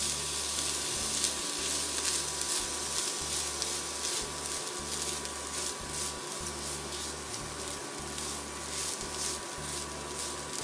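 Raw rice with grated carrot and onion frying in oil in a nonstick frying pan: a steady quiet sizzle with the repeated scrape of a spatula stirring it.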